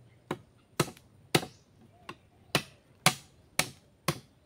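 Repeated chopping strikes of a blade into wood, about two a second, with a short pause midway.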